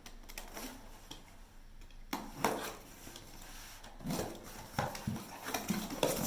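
Small accessories and packaging being handled and unpacked: rustling with several light knocks and clinks of hard items, spaced a second or so apart.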